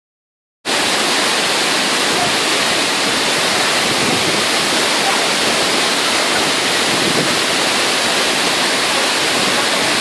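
Large cascading waterfall pouring over a broad rock face: a steady, loud rush of falling water that starts abruptly about half a second in.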